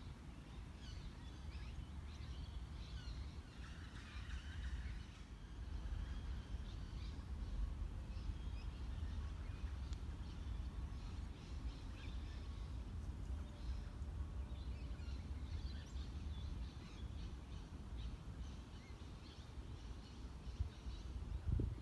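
Woodland ambience: scattered bird calls over a low, steady rumble, with a couple of knocks near the end.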